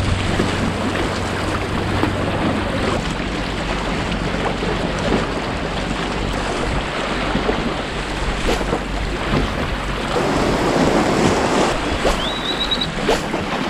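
Sea waves washing against shore rocks, with wind buffeting the microphone. A low steady hum sits under it for the first few seconds, and a short rising whistle sounds near the end.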